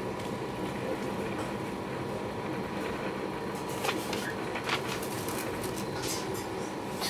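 DB Regional Express train running along the line, heard from inside the carriage: a steady rumble with a faint even whine, and a few sharp clicks and rattles about four and five seconds in and again near the end.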